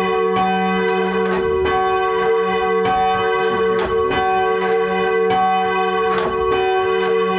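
Gillett and Johnston ring of eight church bells being rung, one strike quickly following another over a continuous hum of overlapping, ringing bell tones.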